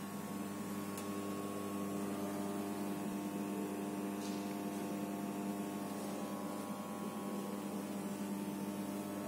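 Steady electrical mains hum from a running thyristor phase-angle-controlled AC-DC power supply cabinet. Several low tones are layered into an even drone that stays unchanged throughout.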